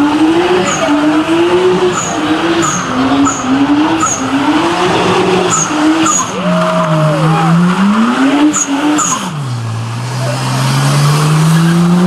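V8 muscle car doing a burnout: the engine's pitch swells up and down in quick repeated pulses over screeching, spinning tyres. Near the end the revs drop low and then climb steadily as the car accelerates.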